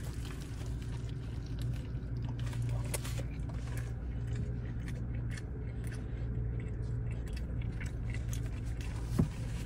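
A person biting into and chewing a double cheeseburger with a crispy bun, with small crunching and wet mouth clicks over a steady low hum in the car cabin. A sharp click comes near the end.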